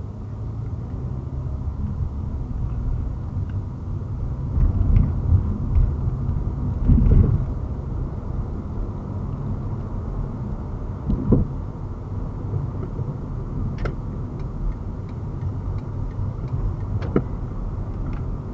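Low, steady road and engine noise inside a moving car's cabin, picked up by a dash cam's microphone, with a few brief thumps.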